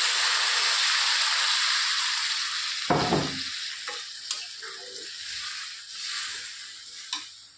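Water poured into a hot kadai of fried masala hits the oil and sizzles loudly, the hiss dying down over the following seconds as the water takes up the heat. A brief thump about three seconds in, then a metal spatula stirring and scraping in the pan.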